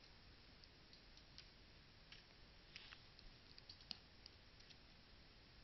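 Near silence: a faint steady hiss with a dozen or so faint, short clicks at irregular intervals.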